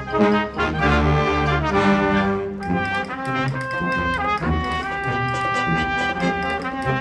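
Brass ensemble playing: full chords with low notes for the first couple of seconds, then long held notes from about three seconds in, shifting pitch once around four seconds in.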